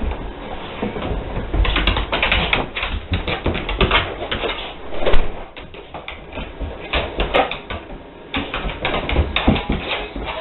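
Rapid, irregular clicking and scrabbling of a dog's claws on a wooden floor as it moves about.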